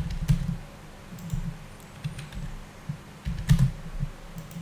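Computer keyboard keystrokes: a few scattered taps at irregular intervals as numbers are typed in, the loudest cluster about three and a half seconds in.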